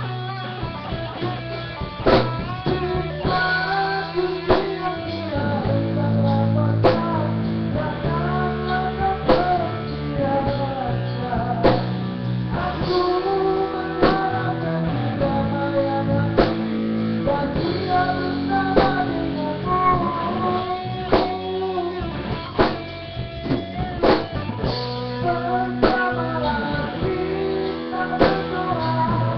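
Band music: a guitar melody over bass and a drum kit, with drum accents at a steady pulse.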